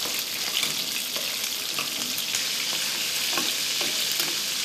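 Langostinos and prawns frying in olive oil in a paella pan, giving a steady, even sizzle, with faint scrapes and ticks of a slotted spoon stirring them.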